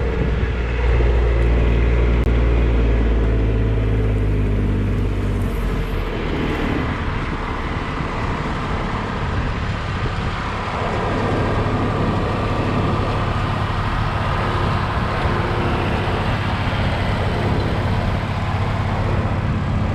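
Tractor engine running steadily, its note shifting about five and a half seconds in.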